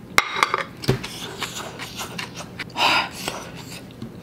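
A ceramic bowl is set down on a plate with a sharp clack and a low knock in the first second. Chewing and small mouth clicks follow, and about three seconds in there is a short, sharp breath out against the burn of very spicy fire noodles.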